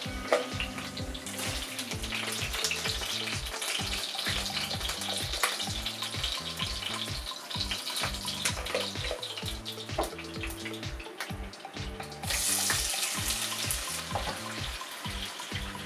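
Background music with a steady beat over a hiss of running water and scattered small clicks of kitchen utensils; the water hiss gets louder about twelve seconds in.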